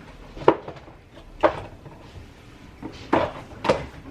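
Kitchen clatter: four separate sharp knocks and clacks as containers and utensils are handled and set down.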